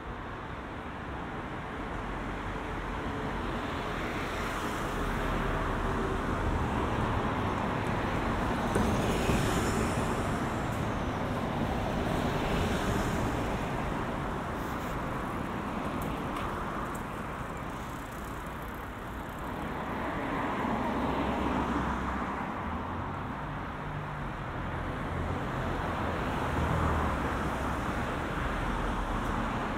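Road traffic: cars passing one after another, the tyre and engine noise swelling and fading several times.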